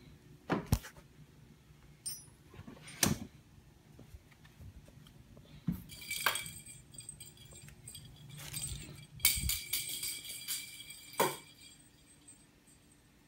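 Kittens playing with a small toy ball on a hard floor: a string of sharp knocks and clatters as it is batted about, with a small bell jingling now and then, most in the second half.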